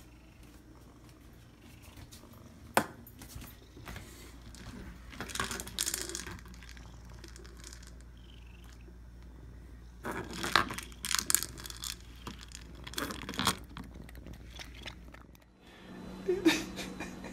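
A cat moving about on a tile floor: a few short bursts of scuffing and rustling and one sharp click, over a steady low hum.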